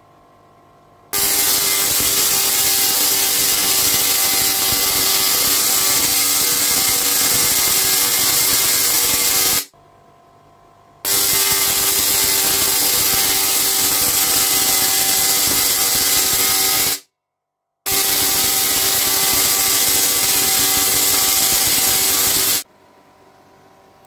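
Spark-gap Tesla coil driven by two microwave oven transformers, firing long electrical arcs with a loud, steady buzzing crackle. It runs in three spells of several seconds, starting about a second in and stopping shortly before the end.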